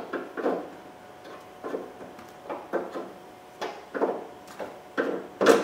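Ratchet clicking in a dozen or so short, uneven strokes as the 13 mm cap nuts holding the door's ground-effect trim are loosened, with the loudest click near the end.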